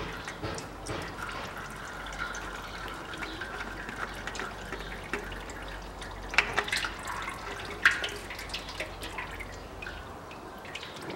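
Used engine oil draining from a car's sump into a metal drain basin: a steady trickle with many small drips. Two sharper clicks stand out, about six and eight seconds in.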